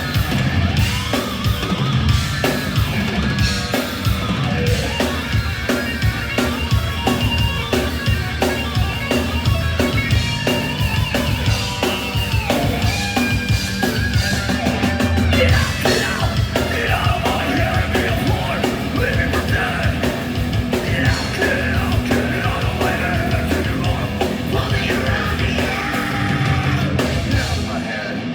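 Live metal band playing loud and fast: distorted guitars, pounding drum kit and yelled vocals.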